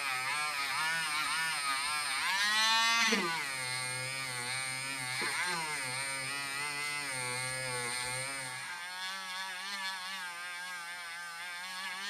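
Small electric motor running with a wavering pitch; the pitch rises and then drops sharply about three seconds in, and the sound thins out and quietens near nine seconds.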